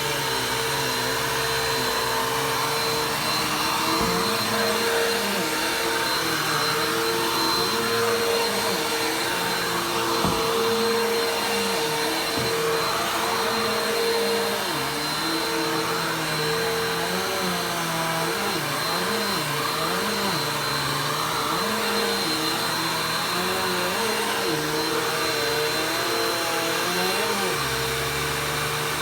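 Vacuum cleaner running steadily, with a constant whine and lower tones that waver up and down in pitch as it works.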